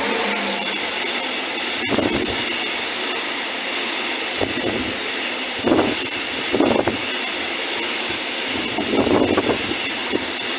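Freight train passing close at speed: a Newag Dragon E6ACTd electric locomotive and then its open coal wagons, giving a loud, steady rush of wheels on rail, broken by irregular low thumps from about two seconds in.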